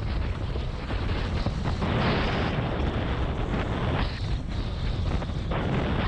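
Wind buffeting an action camera's microphone, with water rushing and spraying under a windsurf board sailing over chop. The noise swells about two seconds in and again from about four seconds.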